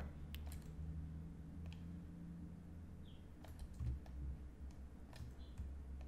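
Faint, scattered clicks of a computer mouse and keyboard, a handful spread over several seconds, over a low steady hum.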